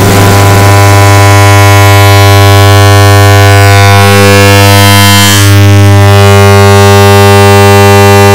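The 'lemme smash please' voice clip layered on itself so many times that it has merged into one loud, heavily distorted, steady buzzing drone with a strong low hum.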